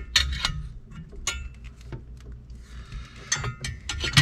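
A work light being handled and hung up: a scatter of light clinks and taps, a brief scraping rustle about three seconds in, and a sharper knock at the very end, over a low steady hum.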